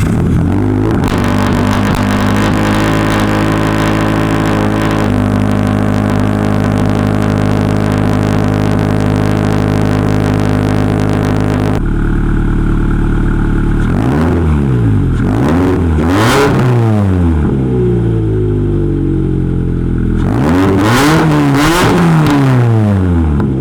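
Turbocharged Subaru BRZ flat-four engine idling steadily through its exhaust; after a cut, it is revved twice, the pitch climbing and then falling back each time.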